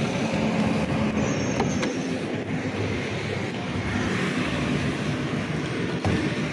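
The driver's door of a 1997 Suzuki Mehran is unlatched and opened with a couple of clicks about two seconds in. A sharp clack comes about six seconds in as the bonnet release lever under the dashboard is pulled, all over a steady low vehicle noise.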